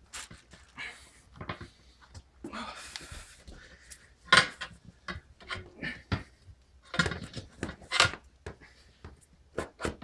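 Tire irons and a pry bar scraping and clinking against a steel wheel rim while a tire bead is levered off by hand. The metal knocks come at irregular intervals, with rubbing scrapes between them.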